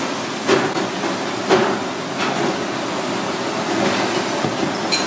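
Sharp cracks and clicks of a live lobster's shell and legs being broken apart by hand over a steady rushing noise. The two loudest cracks come about half a second and a second and a half in.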